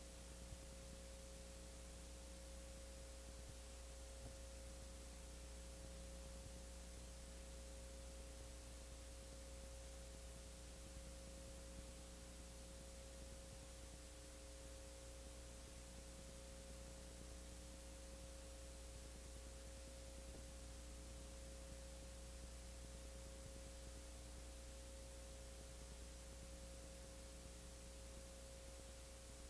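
Near silence: a steady electrical hum with faint hiss and no other sound.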